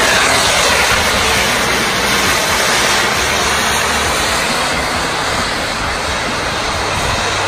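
Endurance race cars running on the circuit, heard as a loud, steady rushing roar with no distinct engine note, easing off slightly over the seconds.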